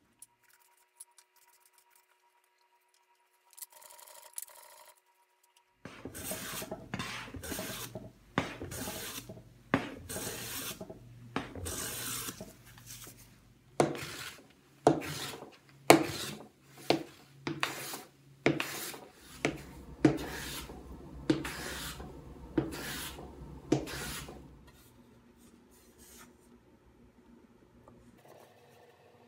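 Hand plane shaving a wooden board in a long run of strokes, about one to two a second. The strokes start about six seconds in and die away a little before the end.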